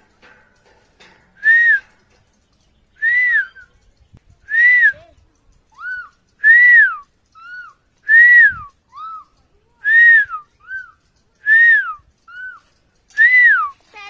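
Male Eclectus parrot calling loudly eight times, about every second and a half. Each call is a whistle-like note that rises and falls, and most are followed by a shorter, lower note.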